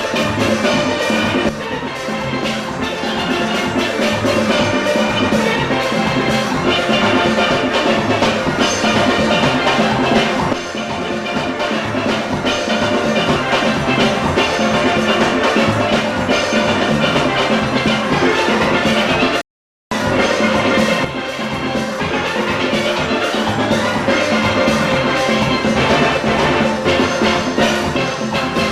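Full steel band playing steelpans over drums and percussion. The sound drops out completely for a moment about two-thirds of the way through.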